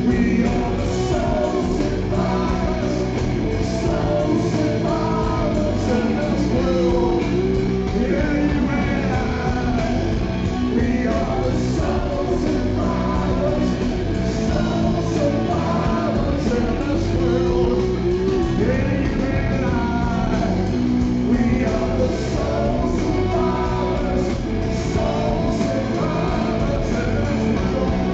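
Live rock band playing: a male singer's voice over guitar, keyboard and drums, recorded from within the audience.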